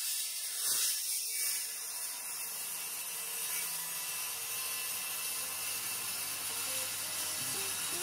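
Power saw cutting through a plywood panel along a clamped guide, a steady high-pitched hiss.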